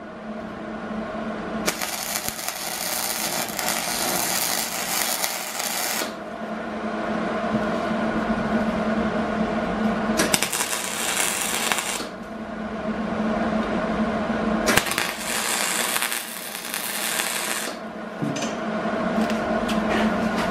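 Hobart Handler 140 MIG welder tack-welding steel guardrail posts to a truck-wheel rim: three crackling bursts of arc, about four, two and three seconds long, over a steady hum.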